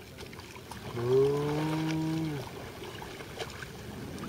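A cow lowing: a single moo about a second in, lasting about a second and a half, over the faint lap of river water.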